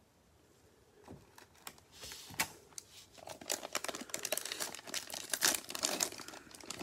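Plastic wrapper of a Donruss Optic football cello pack crinkling in gloved hands as it is picked up and torn open. The crackling starts about a second in and grows dense and sharp from about three seconds in.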